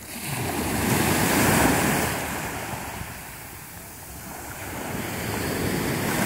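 Small sea waves breaking and washing up a pebbly beach, a rushing surf that swells and fades twice: one wave peaking in the first two seconds, the next building near the end.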